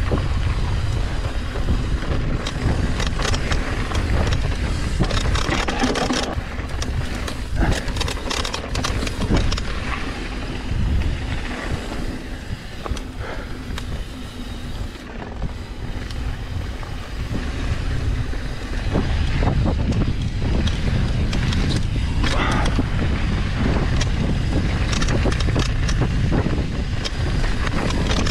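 Wind buffeting the microphone of a downhill mountain bike rolling fast down a dirt and gravel trail, with tyres crunching and the Trek Session bike clattering and rattling over bumps. It eases off for a few seconds about halfway through.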